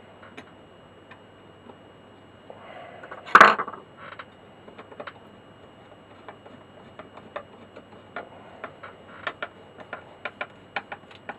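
Hand screwdriver driving screws into the wooden record player case to hold the front panel, making small irregular clicks. One louder knock comes about three and a half seconds in, and a quicker run of clicks comes near the end.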